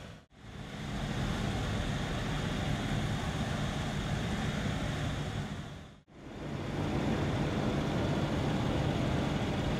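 Steady outdoor vehicle hum and background noise. It drops out briefly twice, about a quarter second in and again about six seconds in.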